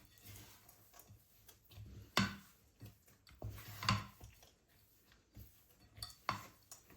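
Light knocks and clicks of objects being handled, with three louder sharp knocks about two, four and six seconds in.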